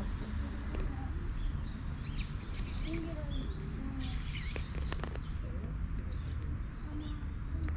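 Small birds chirping again and again, in short high calls, over a steady low rumble.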